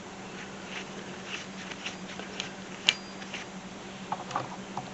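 Light clicks and handling noises of parts being handled, with one sharper click about three seconds in and a cluster of small clicks near the end, over a faint steady hum.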